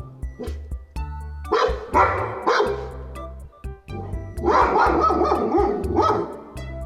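Dog barking in two runs of rapid barks, one about a second and a half in and another about four and a half seconds in, over background music with a steady beat and held bass notes.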